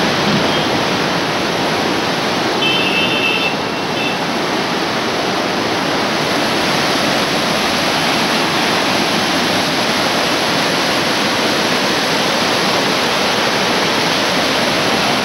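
Muddy floodwater of the swollen Sutlej river rushing and churning past a bridge's stone piers and arches, a loud steady rush of water. A brief faint high tone sounds about three seconds in.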